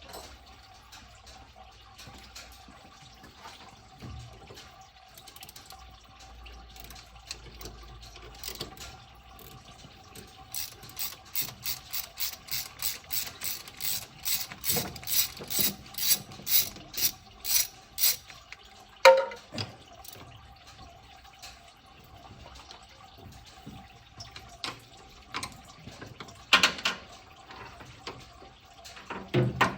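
Ratchet wrench clicking steadily, about two clicks a second for several seconds, growing louder. It is followed by a sharp knock and, later, a couple of clanks of metal tools.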